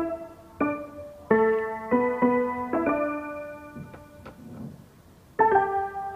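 Background piano music: single notes and chords struck about every half second, each fading away, with a short pause before one last chord near the end.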